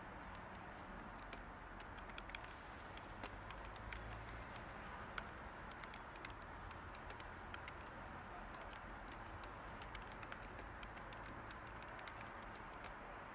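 Light typing on a computer keyboard: soft, irregular key clicks over a steady background hiss of white noise.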